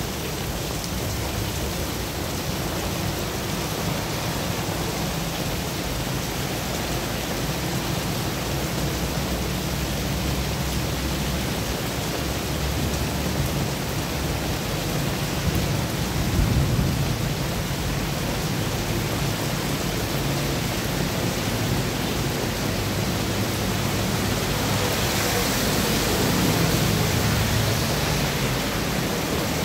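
Heavy rain falling steadily on a wide street, with a low rumble underneath. Near the end, motorbikes and a car pass, their tyres hissing on the wet road.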